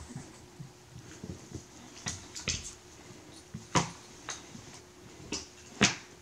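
A kitten tussling with a tinsel-trimmed graduation hat on a foam play mat: scattered light knocks, bumps and rustles, about half a dozen of them.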